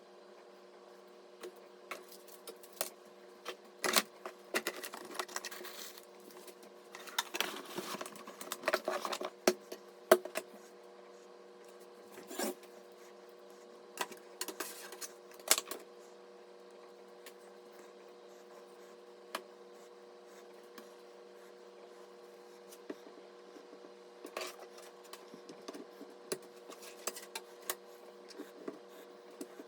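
Hands handling PC parts during assembly: scattered sharp clicks and taps with short bursts of rustling, busiest in the first ten seconds and again near the end, over a steady hum.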